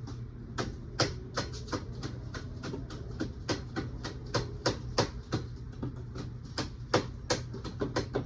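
Repeated sharp knocks or taps, about three a second and uneven in strength, starting about half a second in, over a steady low hum.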